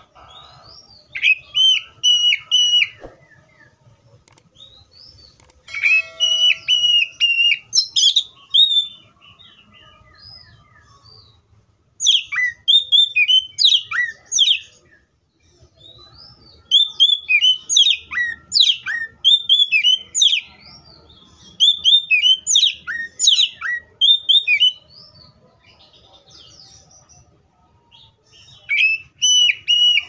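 Oriental magpie-robin singing in repeated bouts of loud, varied whistled notes and quick sweeping phrases, each bout a second or three long, with short pauses between.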